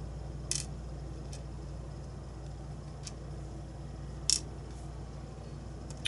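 Small lock pins being worked out of a lock cylinder's plug and set into a plastic pin tray: a few light clicks and ticks, the sharpest about half a second and about four seconds in, over a steady low hum.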